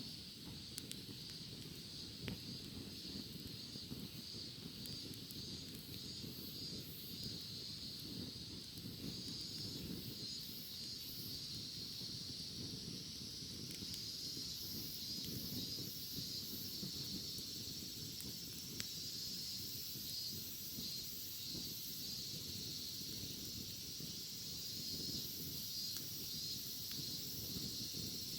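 Cicadas shrilling in a steady, pulsing chorus that swells a little louder about halfway through. Beneath it are a low noisy rumble and a few sharp crackles from a bonfire.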